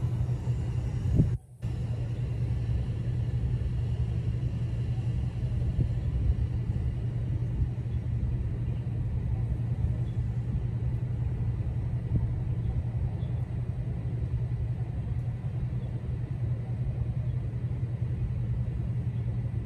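A steady low rumble with no speech, cutting out briefly about a second and a half in.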